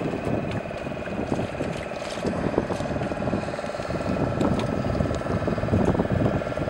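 A boat's motor running steadily with a fast, even chugging, under an uneven low rumble.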